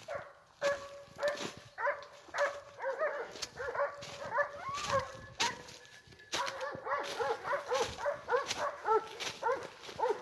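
Dogs barking and yelping in rapid, overlapping high-pitched calls, agitated at an unseen animal, with footsteps crunching through dry oak leaves.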